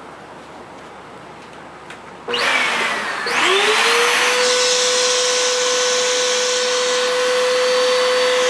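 A second vacuum cleaner is switched on about two seconds in and its motor spins up to a steady whine. It is being used to suck dust out of a clogged Shark stick vacuum's cloth filter.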